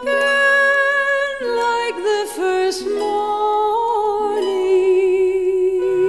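Background music: a slow melody of long held notes, sung with vibrato.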